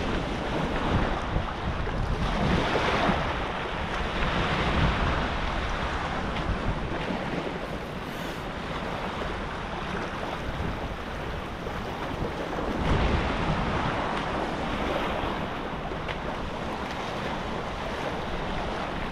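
Wind buffeting the microphone over small waves washing onto a rocky shoreline: a steady rushing noise with a heavy low rumble.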